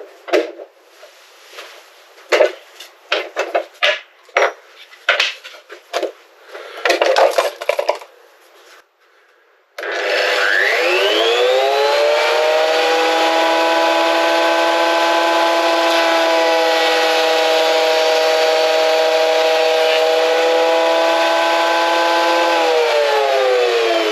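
A series of irregular clicks and knocks, then a short pause. About ten seconds in, a Triton thickness planer's motor switches on and spins up with a rising whine, runs steadily for about ten seconds, and then winds down with falling pitch. This is its test run with newly fitted blades.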